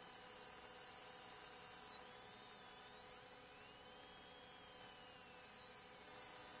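Faint electronic whine on the recording: several thin high-pitched tones drift slowly and irregularly up and down over a steady low hum, with no engine, siren or voice distinct.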